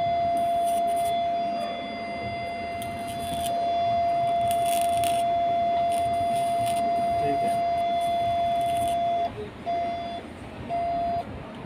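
Valleylab Force FX electrosurgical (diathermy) generator sounding its activation tone as the pencil is keyed for output: one steady high beep lasting about nine seconds, then two short beeps.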